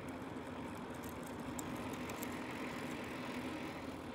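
Steady rolling noise of a touring bicycle on highway bitumen: the tyres hiss and hum on the road surface without a break.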